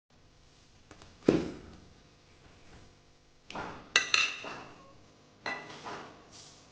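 Food containers being set down and handled: a dull knock about a second in, a cluster of bright clinks and knocks around four seconds in, and another knock near the end.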